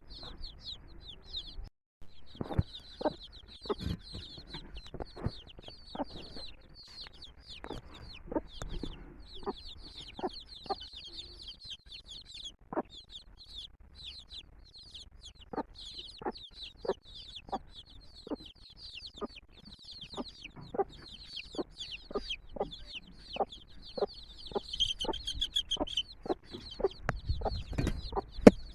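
Domestic chicks peeping in a dense, continuous stream of high cheeps, with the mother hen giving many short clucks underneath. The sound cuts out briefly about two seconds in.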